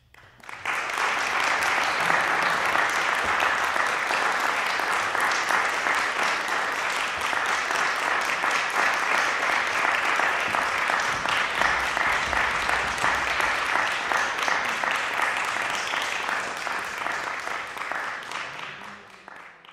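Audience applauding: many hands clapping in a dense, steady patter that starts about half a second in and fades away near the end.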